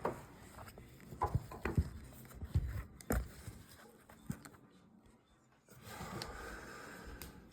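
A few sharp knocks and clacks from handling a plywood chair seat and its upholstery fabric, about five in the first three seconds, followed by a faint rustle near the end.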